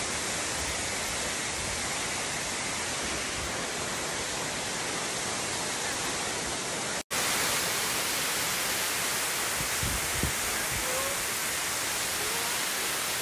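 Waterfall: heavy falling water making a steady, full rushing noise, broken by a momentary dropout about halfway through, after which it comes back a little louder.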